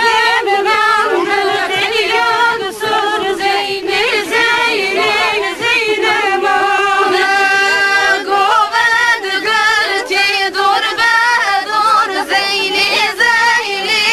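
A group of young women and girls singing a folk dance song together in unison, with long held notes.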